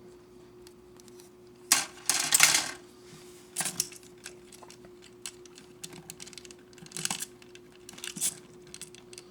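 Small hard plastic model-kit parts clattering and clicking as they are handled and fitted together: a loud clatter about two seconds in, another shortly after, then scattered single clicks.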